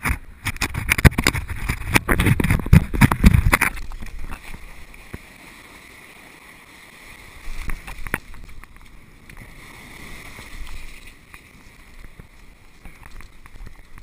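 Wind buffeting an action camera's microphone over the wash of shallow surf: loud and gusty for the first few seconds, then settling to a softer, steady hiss of water with a few swells.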